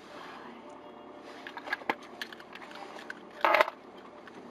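Miniature Pinscher chewing a treat, with scattered crunchy clicks, and a brief loud burst of noise about three and a half seconds in.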